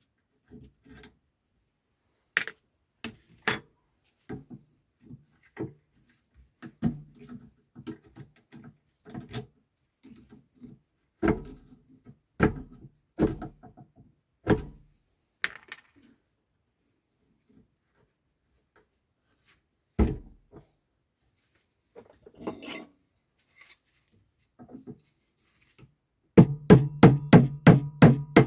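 Scattered metal knocks, clicks and scrapes of hand tools working on a car starter motor clamped in a steel vise, as it is pried and knocked apart. Near the end, background music with a quick beat comes in.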